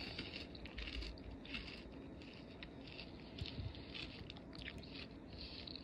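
Someone chewing a mouthful of salad with lettuce and croutons, faint, irregular soft crunches.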